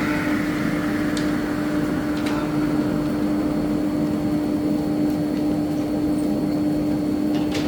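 A large machine motor running steadily, a constant hum with a higher rushing sound that fades away over the first few seconds, and a few light clicks.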